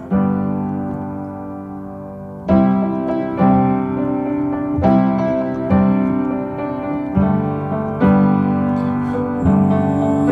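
Piano music: slow chords struck one after another, each left to ring and fade before the next.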